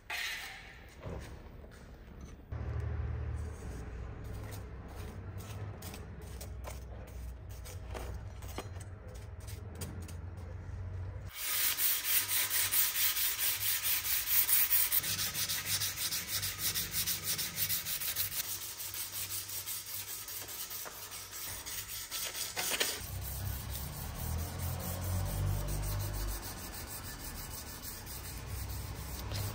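Sandpaper rubbed by hand along a steel knife blade in quick, repeated back-and-forth strokes. The scraping grows louder and brighter for about ten seconds in the middle, then eases.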